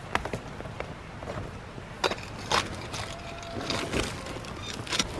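Rake tines scraping through ash and knocking against a charred wooden stump chunk as it is dragged and flipped: scattered scrapes and woody knocks, the loudest about two and a half seconds in.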